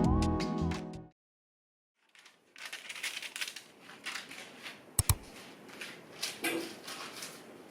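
Background music ends about a second in. After a short silence come faint, irregular handling noises: light clicks and rustles, with a sharp double click about five seconds in.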